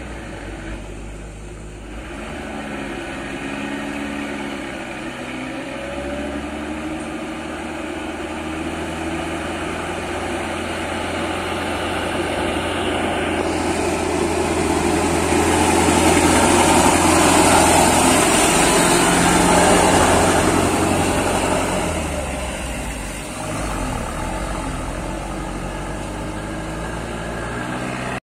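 Heavily loaded diesel truck labouring up a hill, its engine straining under the load. It grows louder as it comes close, is loudest about two thirds of the way through, then fades as it pulls away.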